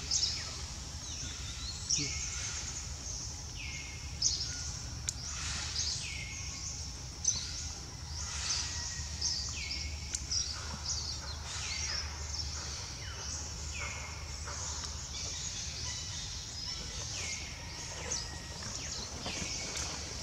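Forest ambience: a steady high insect drone, with short calls that fall in pitch repeated roughly once a second.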